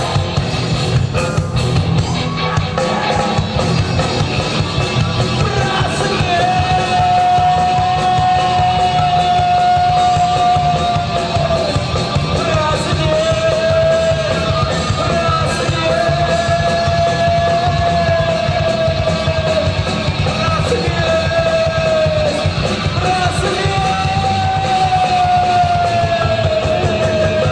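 Rock band playing loud, heavy music with drums, bass and distorted guitars. From about six seconds in, a lead melody holds long notes and slides down between them over the band.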